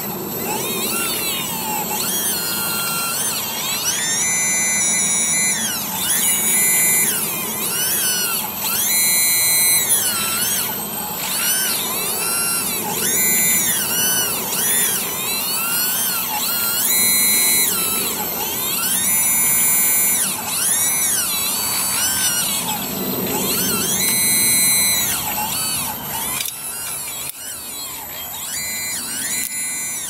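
Electric motors of an RC model Hitachi 210 excavator whining as the boom, arm and bucket are worked, the pitch sweeping up and down again and again as the controls are moved. A lower steady hum runs underneath.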